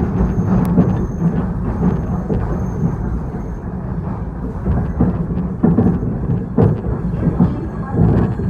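ED4M electric multiple unit running along the line, heard from inside the carriage: a steady low rumble of the wheels with a few sharp knocks as they cross rail joints. A thin high whistle comes and goes.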